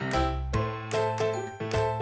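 Background music: bright, bell-like notes over a bass line, with a regular beat.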